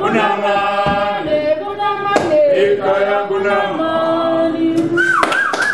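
A group of restaurant kitchen and waiting staff singing together, several voices holding notes in a chant-like song, with a few sharp hits. Near the end a high voice rises above the others with a wavering line.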